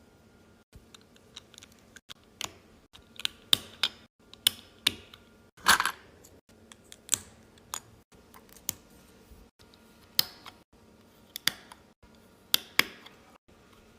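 Lego bricks being handled and snapped together: a string of sharp, irregular plastic clicks and clatters, the loudest about six seconds in.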